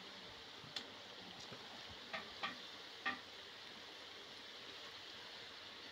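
Khaja pastries deep-frying in hot oil in a large kadhai, a faint steady sizzle, with a few short clicks of the bamboo sticks used to separate and turn them.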